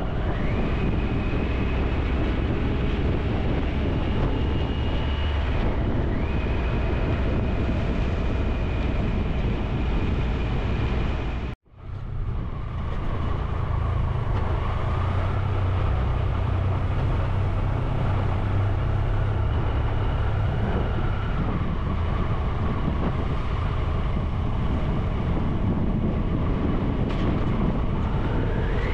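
Motorcycle engine running as the bike rides along, with wind and road noise; the engine note dips and rises with speed and gear changes, rising sharply near the end. The sound cuts out for a moment about a third of the way through.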